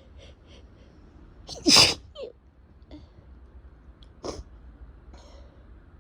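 A person with a head cold and a runny nose sneezing twice. The first sneeze is loud, with a falling voiced tail. The second, shorter and quieter, comes about two and a half seconds later.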